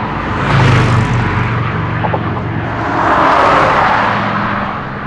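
Road traffic passing close by on a freeway bridge: two vehicles swell past, one about a second in and another about three and a half seconds in, over a steady background of tyre and engine noise.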